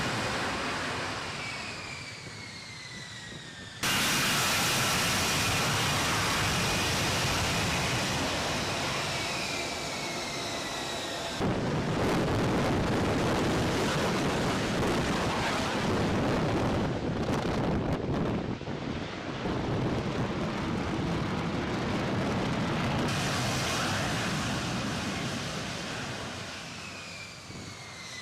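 F-35 fighter jet engine roar in several spliced clips, changing abruptly every few seconds. Several passes carry a high whine falling in pitch as the jet goes by; a longer stretch in the middle is a rougher roar without the whine.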